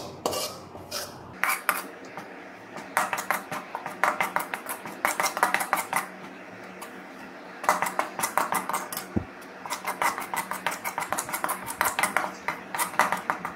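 A steel spoon scraping and clinking against a metal kadai while stirring dry gram flour (besan) as it roasts. It comes in runs of quick strokes, with short pauses about two seconds in and again around six to seven seconds in.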